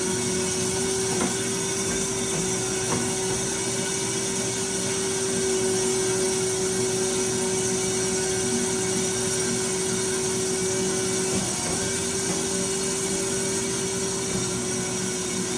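Clausing Kalamazoo KC12AX automatic horizontal band saw running steadily, its blade speed just turned down to 179, a constant hum with one steady whining tone and a few faint clicks.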